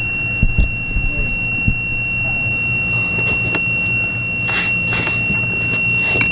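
Multimeter continuity beeper sounding one steady high tone without a break, because the wire it is clipped to is still shorted to ground. A few knocks and scrapes from working the melted wires loose sound over it, along with a low hum.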